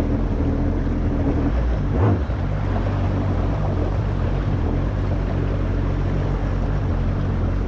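Kawasaki SX-R 1500 stand-up jet ski's four-stroke inline-four engine running steadily at low, no-wake speed, with a brief blip about two seconds in.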